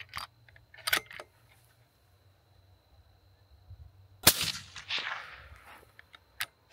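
A single suppressed shot from a 6.5 Creedmoor rifle with a SilencerCo Harvester Evo suppressor about four seconds in, a sharp crack followed by an echo trailing off over about a second and a half; it meters 134.5 dB(A) at the shooter's ear. Metallic clicks from the rifle's bolt being handled come near the start and near the end.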